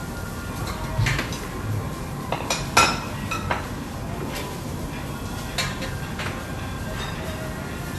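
Tableware clinking as people eat: utensils knocking against plates and bowls in a run of scattered short clinks, the loudest about three seconds in.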